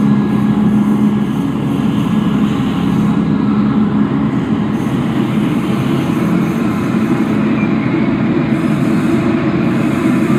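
Steady industrial drone: a low hum under a dense rumbling noise, going on without a break, like the sound of trains and machinery.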